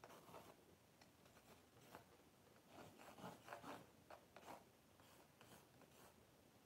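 Faint, scratchy strokes of a pencil sketching lines on a white painting board, a few strokes at a time with short pauses between.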